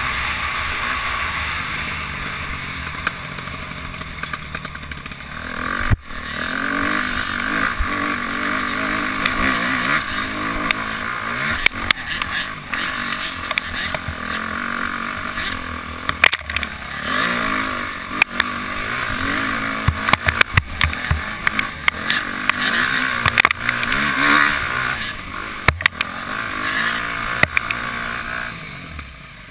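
Dirt bike engine heard from on board, revving up and down as the rider works the throttle over a rough trail and hill climb, with many sharp knocks from the bumps. The engine sound drops off near the end as the bike slows.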